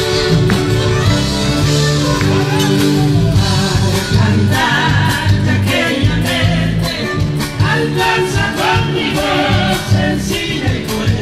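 Music with singing: a band playing over a steady percussion beat, with the vocals standing out from about four seconds in.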